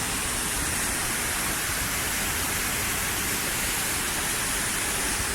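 Waterfall rushing steadily: a multi-tiered cascade of water falling over rock, an even hiss with no change in level.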